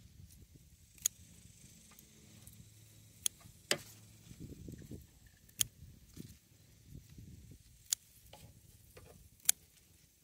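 Scissors snipping Malabar spinach vines: about six short, sharp snips at irregular intervals a second or two apart, with soft rustling of the leaves and stems being handled between them.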